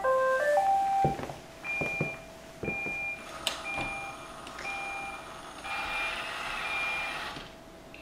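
iRobot Roomba 805 robot vacuum plays a quick rising run of electronic tones as Clean is pressed, then sounds a short high alert beep about once a second over a steady electronic tone. There are a few light knocks near the start, and a soft rushing noise joins in for the last couple of seconds.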